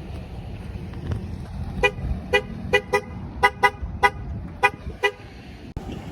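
Car horn tooted in a quick, uneven series of about nine short beeps, over a steady low vehicle rumble.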